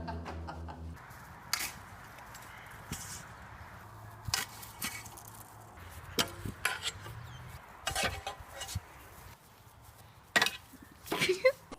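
Irregular short knocks and clatters, about eight spread over the stretch, over a faint steady hiss; the loudest two come close together near the end.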